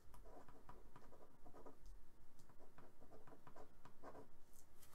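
Pen writing: a run of faint, short scratching strokes.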